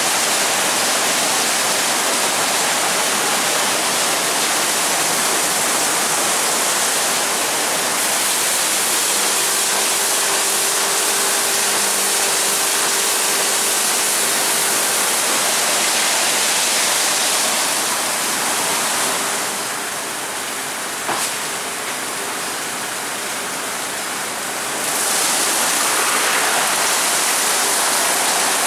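WashTec Combiwash rollover car wash running over a car: water spray and rotating brushes give a loud, steady rushing hiss, with a faint motor hum for a few seconds about a third of the way in. The rush eases off for several seconds after the middle, with a single click, then comes back at full strength.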